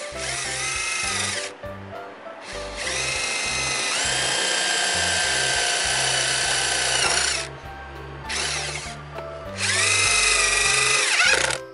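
Cordless impact driver driving screws into a metal mounting bracket, its motor whining in four runs that each climb in pitch as it spins up and then hold. The longest run is near the middle and the shortest just after it.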